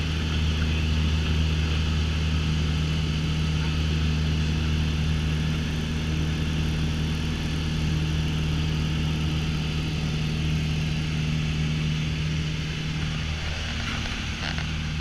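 Piper PA-28 Warrior's four-cylinder piston engine and propeller droning steadily in cruise, heard inside the cabin with a constant rush of air over the airframe.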